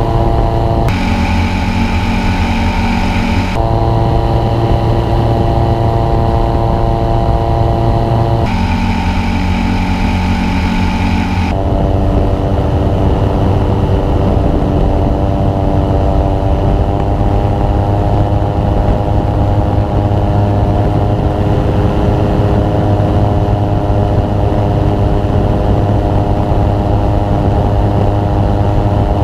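Engine and propeller of a Revo weight-shift light-sport trike running steadily in flight, a constant pitched drone. Its tone shifts abruptly a few times in the first dozen seconds, then holds steady.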